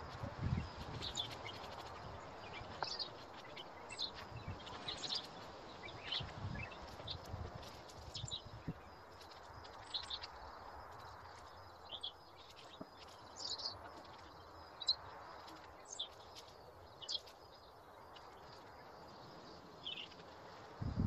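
Small birds chirping here and there, short high calls every second or so, over a steady faint outdoor background. A few soft low thumps come in the first half.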